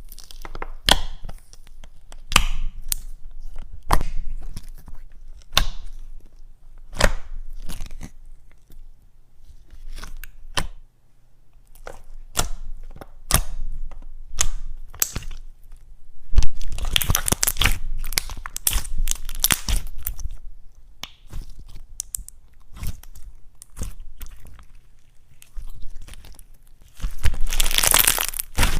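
Slime being squished, stretched and pulled apart by hand, giving a run of sharp sticky pops and crackles, with denser crackling in two longer stretches, the second near the end.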